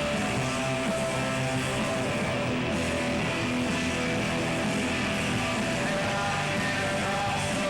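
Rock band playing live, with guitar prominent; the full band sound is steady and dense, without a break.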